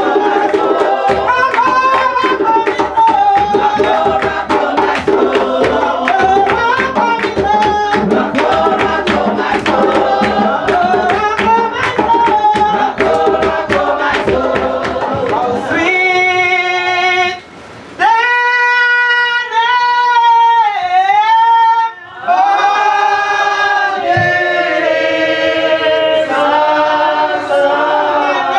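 Congregation singing a spiritual into microphones, with a woman's lead voice and rhythmic hand clapping. About sixteen seconds in, the clapping stops and the voices carry on unaccompanied in long held notes.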